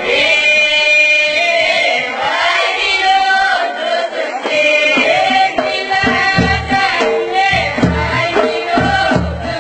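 Ahwach music: voices singing together, with low frame-drum strokes coming in about six seconds in, roughly three a second.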